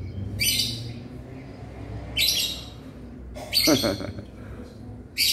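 Kitten mewing: four short, high-pitched cries about a second and a half apart.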